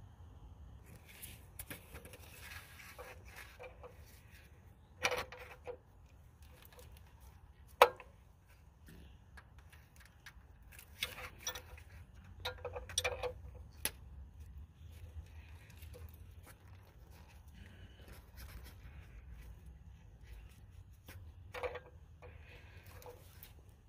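Scattered metallic clicks and scrapes of an 18 mm combination wrench being fitted onto a brass air-line quick-connect fitting and worked to tighten it, with one sharp click about eight seconds in, over a low steady hum.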